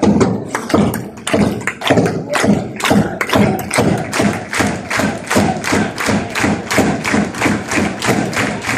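Fans' bass drums struck in a steady rhythm with the crowd clapping along in time, the beat speeding up from about two and a half to about three and a half strokes a second.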